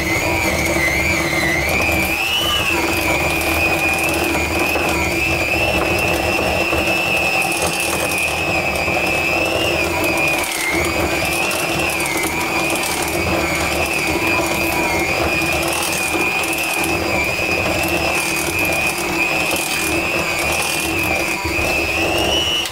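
Electric hand mixer running steadily, its beaters working an egg into creamed butter and sugar, with a high motor whine that wavers slightly as the beaters move around the bowl. It cuts off at the very end.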